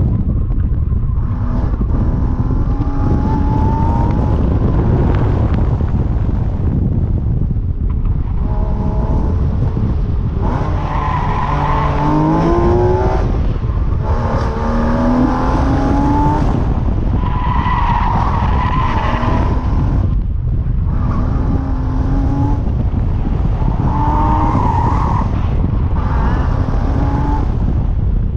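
2015 Porsche Cayman S's 3.4-litre flat-six driven hard, its revs climbing and dropping back again and again. Tyres squeal in the corners several times.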